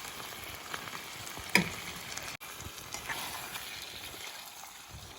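Chicken sizzling as it fries in a pan over a wood campfire, with scattered small crackles. One sharp knock stands out about one and a half seconds in.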